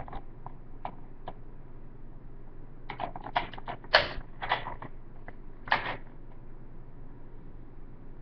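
Plastic clicks and rattles from a toy foam-dart blaster being handled and worked: a few faint clicks at first, then a quick run of louder clicks about three to six seconds in.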